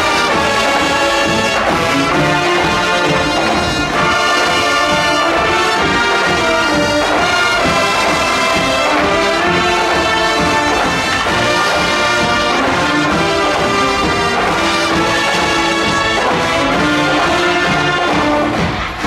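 A full high-school wind band plays loudly, led by trumpets and trombones, echoing through an indoor arena. The playing dips right at the end.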